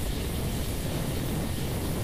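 Steady hiss of falling water, like heavy rain or shower spray, with a deep low rumble beneath it.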